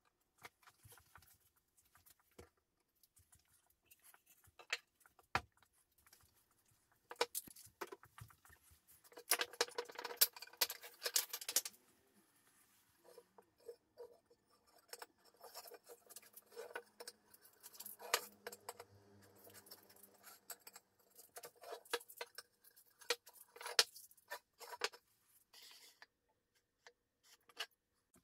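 Scattered light clicks, knocks and rustles of hands handling beech tray sides and plastic spring clamps on a worktable, with a denser stretch of rustling about ten seconds in.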